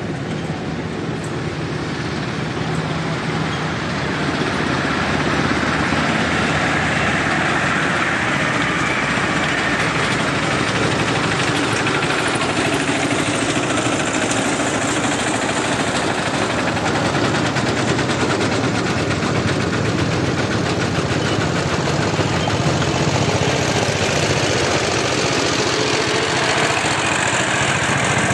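A small engine running steadily close by, getting louder about four seconds in and then holding at that level.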